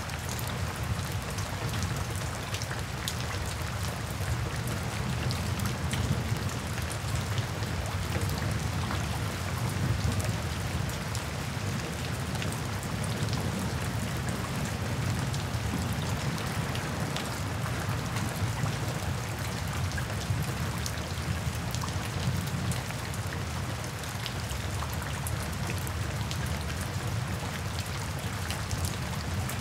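Steady rain falling, a constant hiss with many separate drops ticking and splashing, over a steady low rumble.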